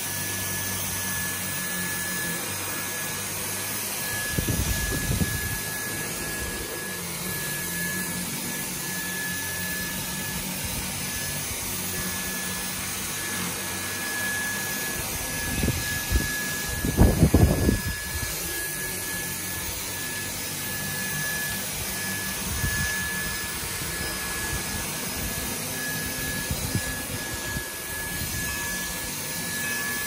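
Dyson cordless stick vacuum running steadily with an even high whine as its floor head is pushed back and forth over a doormat. A few short low thumps break in, the loudest a little past halfway.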